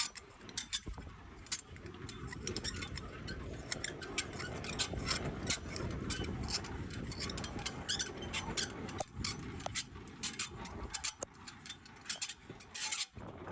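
Semi-trailer landing gear being cranked by hand, its gearbox and crank giving a string of rapid metallic clicks as the leg lowers its foot pad onto the ground.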